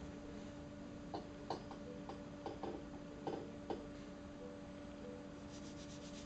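A low steady hum with a handful of faint clicks and light taps scattered through the first four seconds, as from hands rubbing skin and brushing off cut hair.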